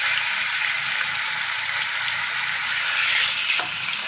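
Chunks of raw meat sizzling steadily in hot oil in a wide pan, just after going in, on high heat to sear them.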